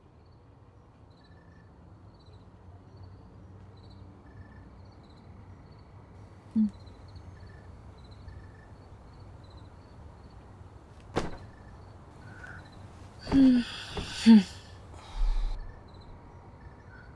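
Crickets chirping steadily in the background. About eleven seconds in there is a sharp click, then a few louder short sounds and a dull low thump about fifteen seconds in.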